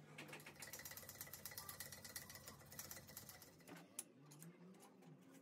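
Metal lathe running faintly: a steady low hum with a fast, even ticking, several ticks a second, as it turns the shaft. Near the end the hum stops and there is a single sharp metal click as the chuck is worked with its key.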